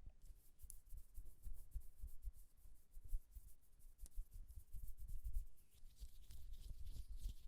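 Close-miked ASMR trigger sounds: a dense run of soft scratching and crackling against the microphone, with many soft low thumps.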